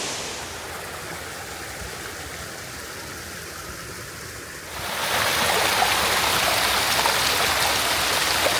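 Steady rush of water from artificial waterfalls pouring into a pool, growing suddenly louder about five seconds in.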